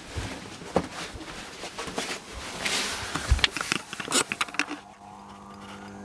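Footsteps, knocks and scraping rustle from someone walking through the house while holding the camera. About five seconds in, these stop and a quieter steady electrical hum with a faint high whine is left.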